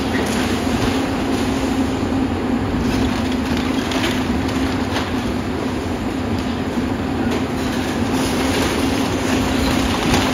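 Volvo EC480 excavator's diesel engine running steadily under load, with the crunch and scrape of its demolition attachment tearing into the building, and a few sharper cracks of breaking material.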